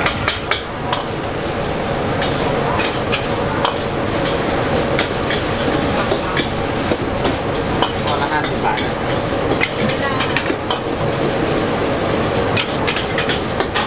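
A metal spatula scraping and clanking against a steel wok as pad thai noodles are stir-fried and sizzle. The many sharp scrapes and clicks come over a continuous sizzle and a steady drone.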